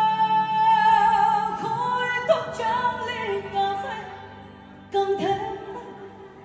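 A woman singing a slow ballad live with a band. She holds one long note through the first couple of seconds, then slides through a few sustained notes that fade down. A new phrase starts about five seconds in.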